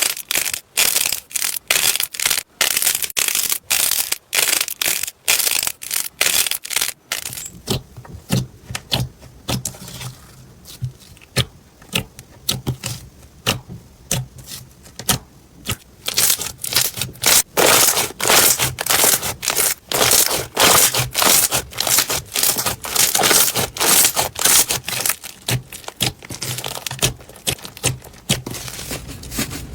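Slime being pressed and poked by hand, giving a run of sharp crackling clicks and pops, several a second, quieter for a stretch in the middle. A faint low hum comes in about a quarter of the way through.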